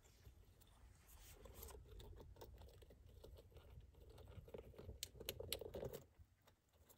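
Dwarf hamster eating from a food dish: faint, rapid clicks and crunches of nibbling, dying away near the end.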